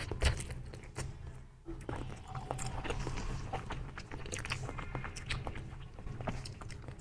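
Close, wet mouth sounds of a person sucking a soft mango jelly out of its small plastic cup and then chewing it, with many small sticky clicks and squishes.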